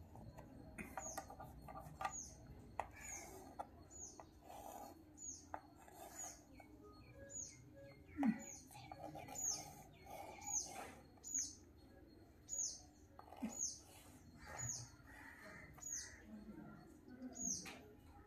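A small bird repeating a short, high, falling chirp, about every two-thirds of a second, with faint clicks and taps of chalk on a slate underneath.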